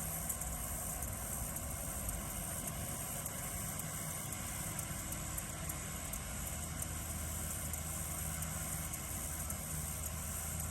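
Tractor engine running steadily while cutting hay, a low even drone with no change in speed, under a constant high-pitched chirring of crickets.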